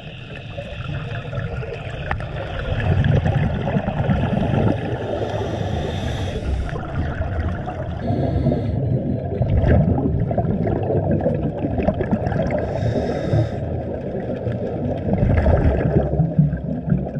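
Scuba divers' regulator breathing heard underwater: short hissing inhalations alternating with longer bubbling exhalations, about three breaths.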